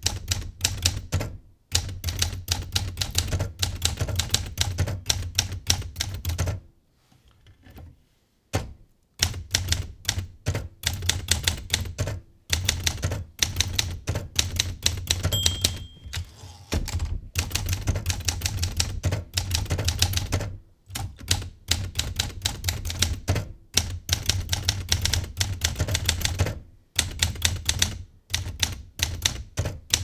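Typewriter keys clattering in rapid runs of strokes, pausing now and then between lines. A brief bell ding comes about halfway through.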